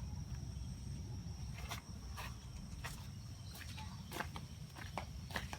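A cat eating, with irregular sharp crunching clicks of the food, about two or three a second, over a faint steady high-pitched insect chirr.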